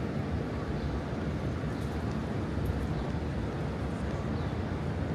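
Steady city street noise, mostly a low rumble of traffic.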